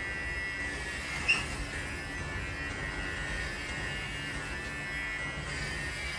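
Xiaomi Enchen Hummingbird electric hair clipper running with a steady buzzing whine as it cuts hair at the nape and up the back of the head. A brief click comes about a second in.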